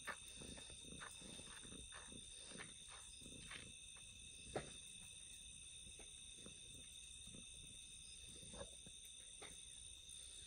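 Near silence outdoors at night: a faint, steady, high-pitched trilling of night insects, with a few soft clicks.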